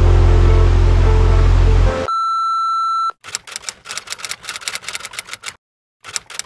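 Background music cuts off about two seconds in and gives way to a steady high beep tone held for about a second, like a broadcast-interruption tone. Then comes a rapid run of typewriter-style key clicks, pausing briefly near the end before starting again.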